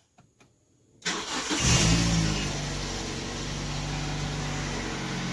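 Lifan X60's four-cylinder petrol engine starting from cold, after a short silence: it catches about a second in, revs up briefly, then settles into a steady idle.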